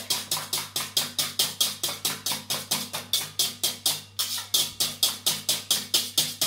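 Hand whisk beating eggs and yogurt in a stainless steel mixing bowl, the wires striking and scraping the metal in quick, even strokes about five a second, with a brief pause about four seconds in.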